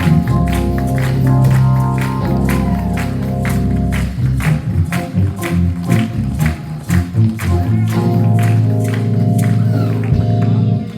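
Church band music with a steady drum beat over held keyboard and bass chords, cutting off sharply near the end.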